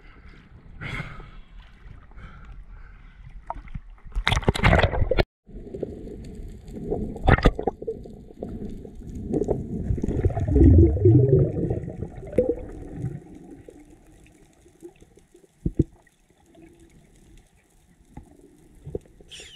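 Water sloshing and splashing over a camera at the sea surface, then, from about five seconds in, muffled underwater sound: rushing water and bubbling that is loudest around the middle, fading to faint clicks near the end.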